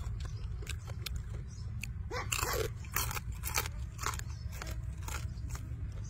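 A man chewing and crunching crispy fried chicken close to the microphone, with a quick run of louder crunches about two seconds in and scattered small clicks of chewing throughout, over a steady low rumble.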